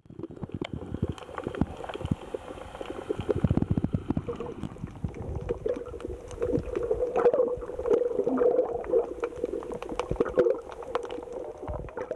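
Underwater sound picked up by a waterproof compact camera: water moving against the camera and many crackling clicks, with a steady hum that grows stronger about halfway through.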